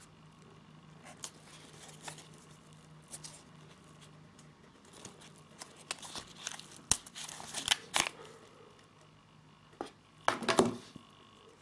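Rustling and scraping of a nylon knife sheath being handled as a fixed-blade knife is drawn out of it, with scattered sharp clicks. A louder cluster of clicks and scrapes comes about six to eight seconds in, and a brief louder rustle near the end.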